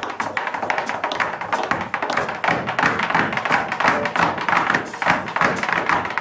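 Tap shoes striking a wooden tap board in a fast, dense run of rhythmic taps.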